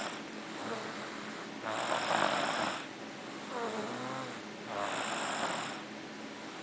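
A young child snoring in his sleep: two long, noisy snoring breaths about three seconds apart, with a wavering pitched tone between them.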